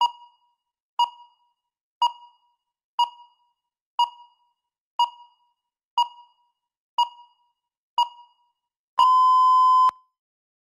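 Countdown timer beeping once a second, nine short electronic beeps, then one long steady beep of about a second at the same pitch, signalling that the preparation time has run out.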